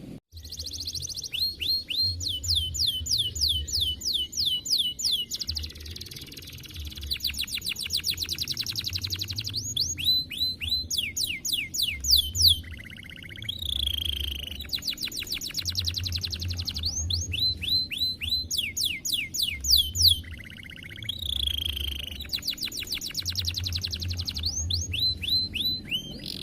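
Domestic canary singing a long, continuous song of rapid trills, each run of quickly repeated high notes giving way to the next with hardly a break.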